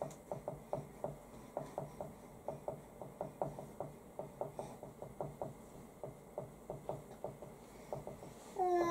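Marker pen writing on a whiteboard: a run of short taps and scratches of the tip, about three a second, as Japanese characters are written stroke by stroke.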